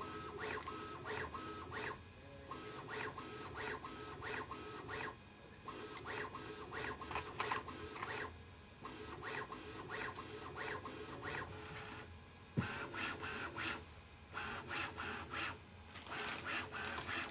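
Bambu Lab A1 mini 3D printer running its self-calibration, which calibrates the printer to reduce its printing noise. Its motors drive the machine through a repeating pattern of short steady tones that switch on and off, about one to two pulses a second, with a single sharp knock about two-thirds of the way through.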